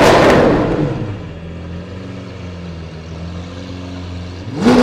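Lamborghini Aventador SV's V12 idling steadily through a full catless aftermarket exhaust, a low even hum, after a louder sound dies away over the first second. Near the end a loud sound starts again suddenly.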